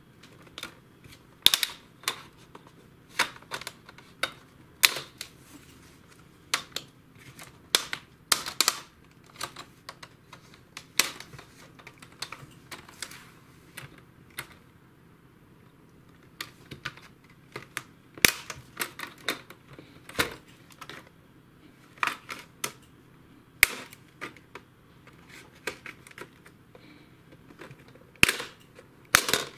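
Plastic screen bezel of a Samsung laptop being pried off the display lid with a plastic card: a series of sharp, irregular snaps as the stiff plastic latches release one by one, with a quieter stretch around the middle.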